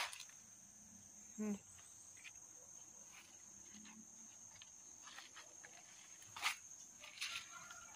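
Insects keep up a steady high-pitched drone. A few short rustles and clicks come through, the loudest about six and a half seconds in, and there is a brief low voiced sound about a second and a half in.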